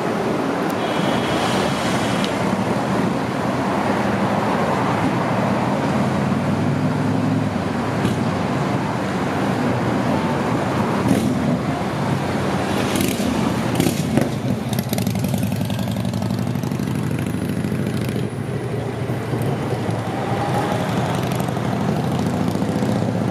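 Steady road traffic and tram noise at a street-side tram stop: the running hum of a Utsunomiya Lightline tram mixed with passing cars, with a short high tone about a second in and a few clicks about halfway.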